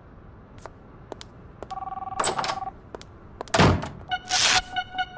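A mobile phone ringing with a two-tone electronic ring: one short ring about two seconds in, then the tones pulse quickly near the end. A dull thud and a brief rustle come just before the pulsing starts.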